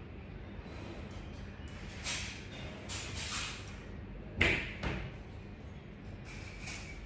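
Off-screen household handling noises: a few short rustles, then a sharp thump about four and a half seconds in with a smaller knock just after it.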